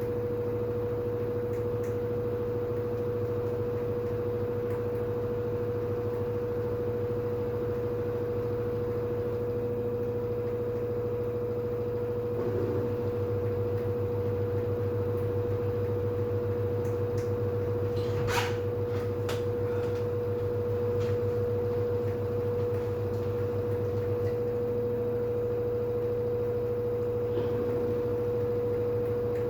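LG FH4A8TDN2 front-loading washing machine on its 1400 spin cycle: a steady hum with a constant whine. The hum swells slightly partway through, and there is a single sharp clack about eighteen seconds in.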